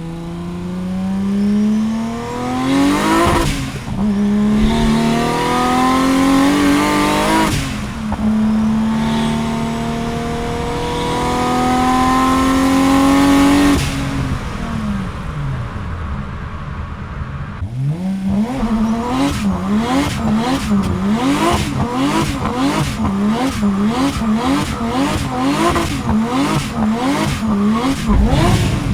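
Turbocharged BMW E30 M20B27 stroker straight-six on a full-throttle pull: the engine note climbs through three gears, with upshifts about 3.5 and 7.7 seconds in, and falls away when the throttle is lifted about halfway through. In the second half the engine is revved up and down about twice a second, with a sharp crack at each peak.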